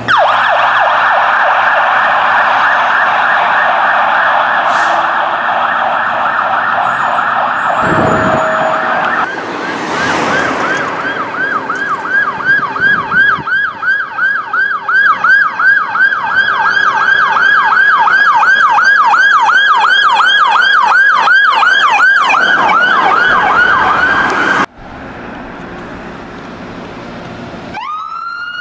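Fire apparatus electronic sirens on a fast yelp, sweeping up and down about three to four times a second, with a brief break around ten seconds in. The siren cuts off abruptly about 25 seconds in. Near the end another siren starts, winding up in a rising wail.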